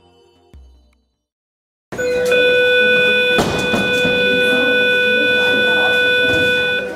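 An alarm rings loudly and steadily, starting abruptly about two seconds in and cutting off near the end.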